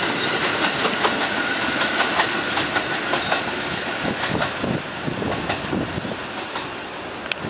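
R46 subway train pulling away, its wheels clicking over the rail joints, with a thin steady whine in the first few seconds. The sound slowly fades as the train moves off.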